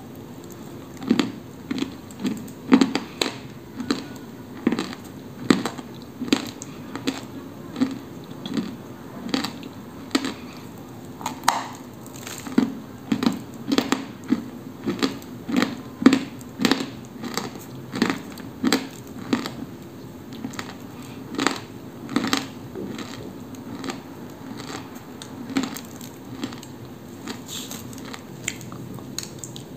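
Dry crunching as a pale lump of koksol is bitten and chewed: a steady run of sharp crunches, about one or two a second, growing a little weaker for a few seconds past the middle.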